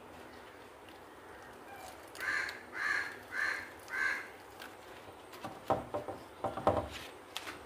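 A bird calls four times in a row, one call about every half second, beginning about two seconds in. Near the end come short, sharp crackles and rustles of a wilted banana-leaf parcel being handled and tied with banana fibre.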